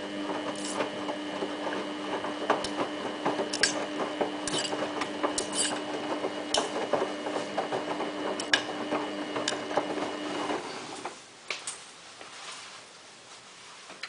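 Samsung WF8804RPA drum washing machine washing a load of jeans: the motor hums steadily while the drum turns, with scattered clicks and knocks, until the motor stops about ten and a half seconds in.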